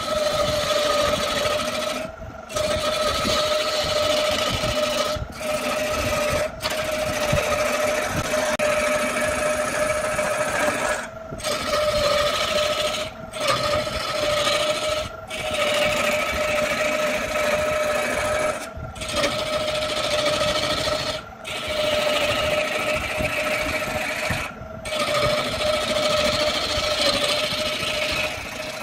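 Wood lathe running with a steady motor whine while a hand tool works the spinning wood with a rough scraping noise. The sound breaks off briefly every few seconds.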